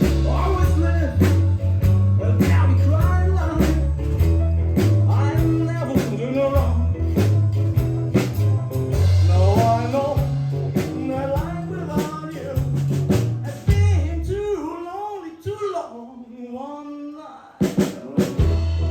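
A live band playing with a singer, bass, guitar and drums. About fourteen seconds in the bass and drums drop out, leaving the voice nearly alone, then the full band comes back in with a loud hit a few seconds later.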